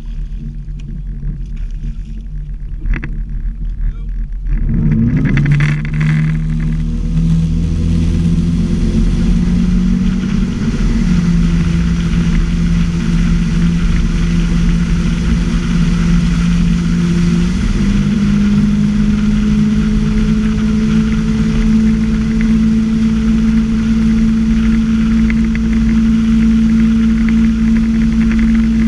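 Motorboat engine idling, then opening up about four seconds in, its pitch rising and settling into a steady drone that steps up twice as the boat pulls a barefoot water skier up to speed. Rushing water and spray from the wake run under it once the boat is moving.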